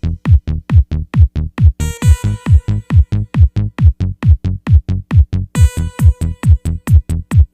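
Electronic dance music with a fast kick drum, about four beats a second, each kick a thump falling in pitch. A buzzy synth note comes in around two seconds in and again near the end.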